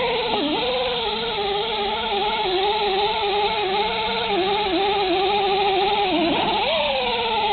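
Electric buffer spinning a red Scotch-Brite pad against an aluminium truck rim to resurface it. Its motor whine wavers and dips in pitch as the pad is pressed into the metal, sagging deepest a little after six seconds before picking back up.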